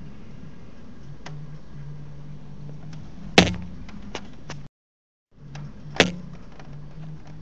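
Steady rain with scattered faint drip clicks, broken by two loud, sharp cracks about two and a half seconds apart. Between the cracks the recording drops out to silence for about half a second.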